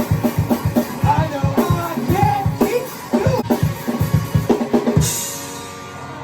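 Rock band playing, driven by a drum kit: a quick, busy run of bass-drum and snare hits with pitched parts over it. About five seconds in, a cymbal crash rings out and the drums drop away.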